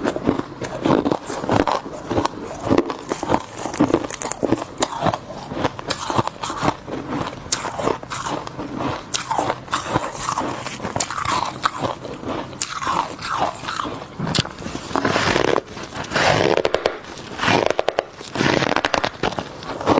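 A person biting and chewing refrozen deep-freezer frost: a dense, continuous run of icy crunches, getting heavier and fuller over the last few seconds.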